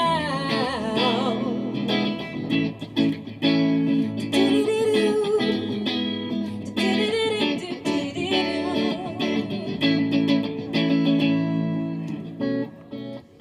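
Live band music playing the song's outro: guitar with held, wordless sung notes over it, dying away near the end.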